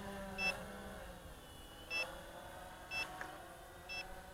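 A short, high electronic beep repeating about once a second, over the faint, wavering whine of a quadcopter's motors in flight.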